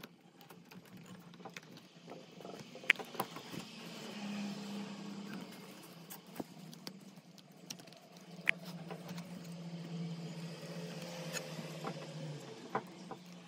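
Plastic parts of an airliner scale model and its display stand being handled and fitted together: scattered clicks and taps, the sharpest about three seconds in and again past eight seconds, over a steady low hum.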